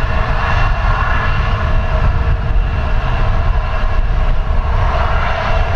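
The twin CFM56-3 turbofan engines of a Boeing 737-400 at takeoff power as it starts its takeoff roll: a steady jet roar with a deep rumble and a whine of fan tones over it.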